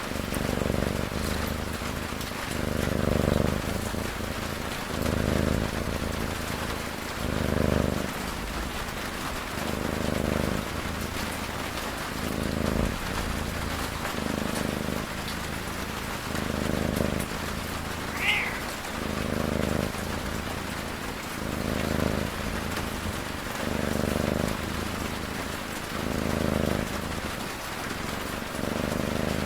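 Cat snoring in slow, even breaths, one about every two and a half seconds, over a steady hiss of rain. A brief high squeak sounds about two-thirds of the way through.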